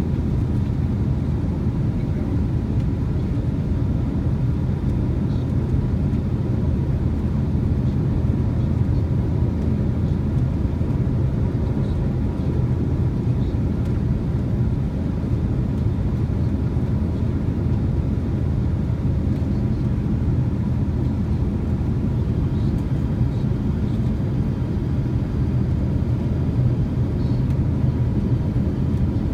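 Airbus airliner cabin noise in flight: a steady low rumble of engines and airflow heard from inside the cabin, with a faint steady hum above it.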